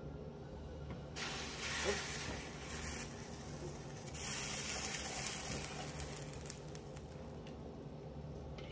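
Hot, freshly strained chocolate-and-cinnamon liquid poured from a bowl into a saucepan, a splashing pour in two stretches, from about one to three seconds in and again from about four to six seconds in.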